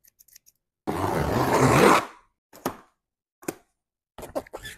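A burst of rushing noise about a second long, then a few sharp clicks, with a quick cluster near the end, as a pair of metal snips is snapped open and shut.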